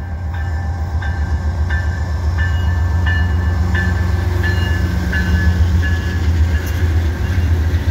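GE AC4400CW diesel-electric freight locomotives passing at close range, their engines giving a deep, steady rumble that grows louder over the first few seconds. A short high tone repeats about every two-thirds of a second over the rumble.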